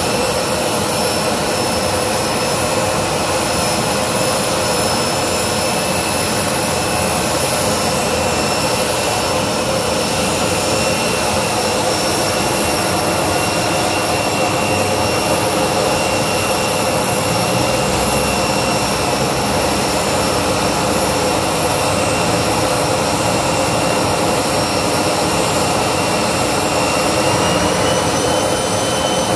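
Turbojet engine, taken from a T-39 trainer aircraft, running steadily in a stationary jet funny car: a loud roar with a high turbine whine. The whine steps up a little in pitch near the end.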